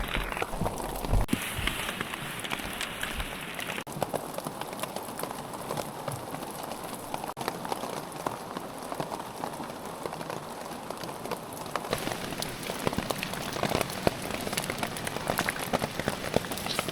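Steady rain falling, with drops pattering and ticking on a Tyvek tarp; the drops come thicker near the end.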